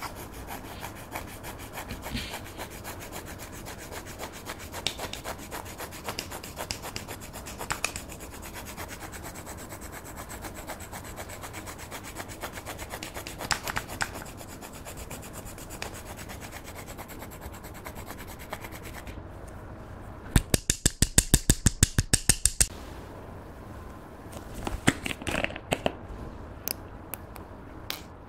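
A plastic stick scraping and crumbling pressed eyeshadow powder in a plastic compact: a fast, steady, fine scratching. About twenty seconds in comes a quick run of loud taps, about six a second for two seconds, and a few more sharp clicks follow near the end.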